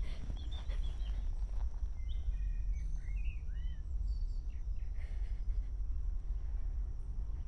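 Outdoor ambience: a steady low rumble with a few short bird chirps about two to three and a half seconds in, over a faint steady high whine.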